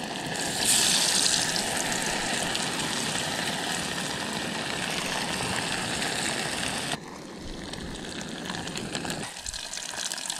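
Battered fish fillets sizzling in hot olive oil: a loud hiss flares about a second in as they go into the pan and holds steady, then drops suddenly to a quieter, crackling sizzle about seven seconds in.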